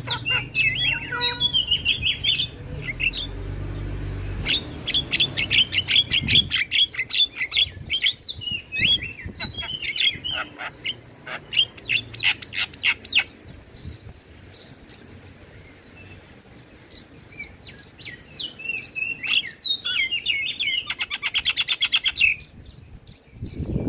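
Javan myna (jalak kebo) singing in bouts of rapid, varied chattering notes, easing off for a few seconds in the middle and starting up again near the end.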